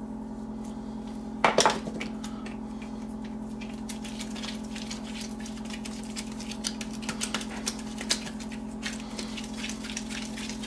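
A metal measuring cup knocking twice against the countertop about one and a half seconds in, then scattered light clicks and rustling as gloved hands work sticky dough on parchment paper, over a steady low hum.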